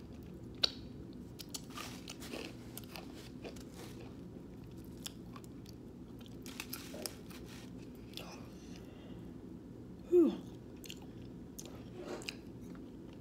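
A person chewing a sandwich close to the microphone, with scattered wet mouth clicks and smacks. About ten seconds in comes a short breathy 'whew'.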